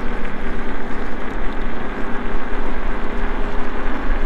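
iSinwheel GT2 off-road electric scooter running at its top speed of about 28 mph: heavy wind rumble on the microphone over a steady hum from the motor and its 11-inch off-road tyres on the road.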